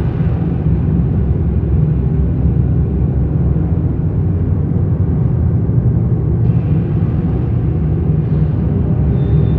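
Dark ambient noise drone: a dense, steady low rumble with most of its weight in the bass. A thin high tone enters near the end.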